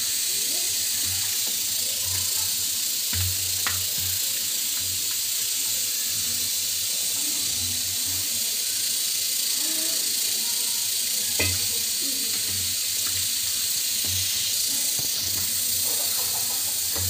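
Hands kneading pieces of fish in a wet masala marinade in a steel bowl: soft irregular squelches and low thumps, with a few sharp clicks, the loudest about eleven seconds in. A steady hiss lies under it all.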